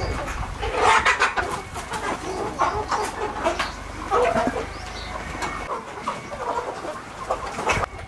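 A large flock of desi hens and roosters clucking and calling over one another, many short overlapping calls.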